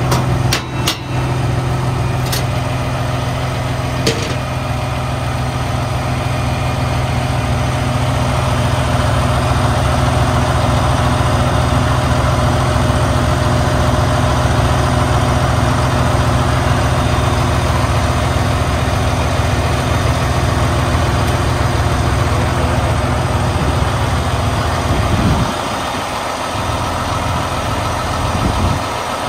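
Heavy diesel truck engine idling steadily, with a few sharp clicks in the first few seconds. The low rumble drops briefly near the end.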